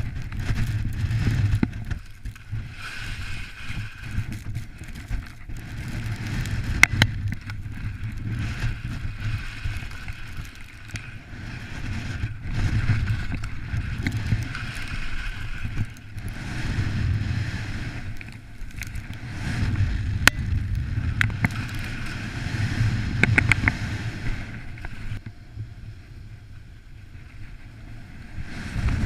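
Wind rumbling and buffeting on the microphone of a moving skier, swelling and fading in gusts, over the hiss and scrape of skis sliding across wind-crusted snow. A few sharp clicks, about 7 s, 20 s and 23 s in; the hiss thins out near the end.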